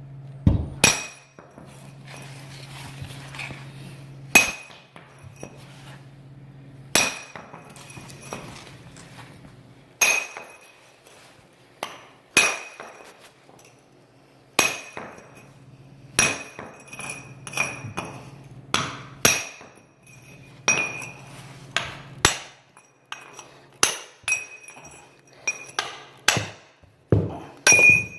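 Small sledgehammer striking a big steel chisel set against nail heads in a concrete slab, knocking the nails out. Each blow is a sharp ringing clang; the blows come every two to three seconds at first, then about once a second in the second half.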